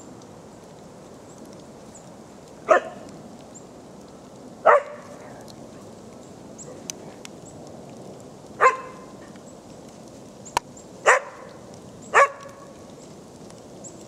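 Kelpie barking in play: five sharp single barks, spaced a couple of seconds apart, the last two close together.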